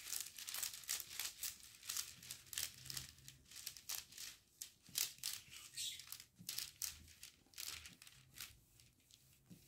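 Plastic packaging crinkling and rustling as it is handled, a run of short irregular crackles that thin out near the end.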